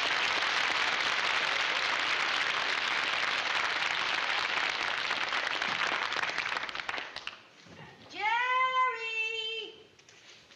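Studio audience applause that fades out about seven seconds in. Then a high voice holds one long note for about a second and a half.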